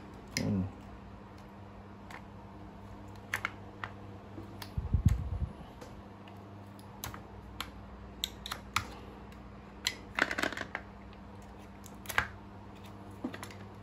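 Irregular small plastic clicks and taps of a handheld battery-powered device and its batteries being handled, with a dull low thump about five seconds in.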